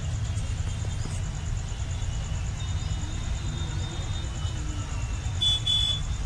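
Steady low rumble, with a brief high-pitched chirp about five and a half seconds in.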